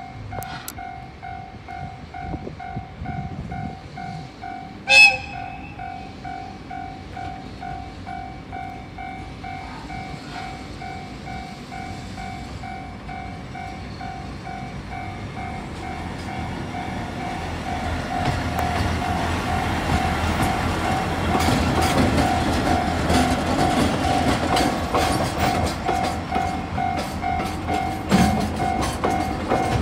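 A Japanese level-crossing warning bell rings steadily throughout, with one short blast of a diesel locomotive's horn about five seconds in. A diesel freight train with container wagons then grows louder and rolls past, its wheels clicking over the rail joints in the second half.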